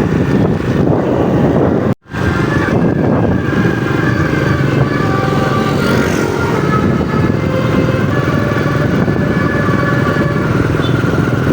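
Motor vehicle engine running with steady road noise, as heard while riding along in traffic. The sound cuts out abruptly for an instant about two seconds in.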